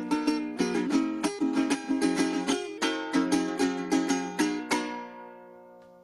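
Venezuelan cuatro, a small four-string guitar, strummed in quick rhythmic chords. Near the end the strumming stops on a final chord that is left to ring and slowly fade.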